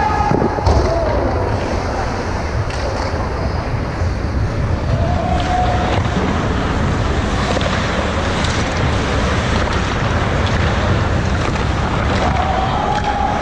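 Steady rushing ambience of an ice hockey rink, with faint distant shouts and a few light clacks of sticks and puck from play at the far end.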